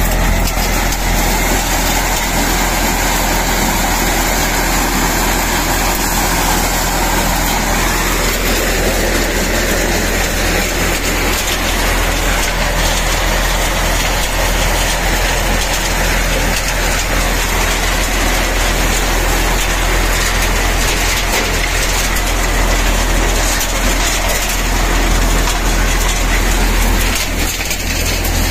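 Tractor-driven maize thresher running steadily while shelling corn: the tractor engine and the thresher's drum and fans make one loud, even mechanical noise with a constant low hum.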